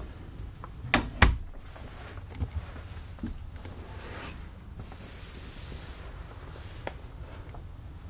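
A trailer's interior door being shut, with two quick knocks about a second in. Low handling noise and a few faint clicks follow.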